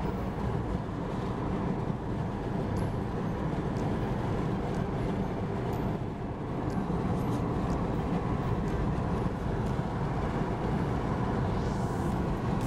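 Steady road noise inside a moving car at highway speed: a low rumble of tyres and engine.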